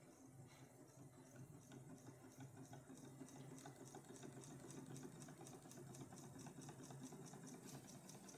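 Homemade reed-switch pulse motor running, faint: an even, rapid ticking of about five or six a second over a low hum, growing a little louder.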